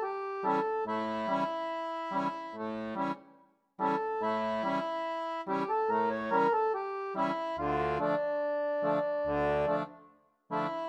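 Instrumental background music: a rhythmic melody over a low bass line, breaking off for a moment about three and a half seconds in and again near the end.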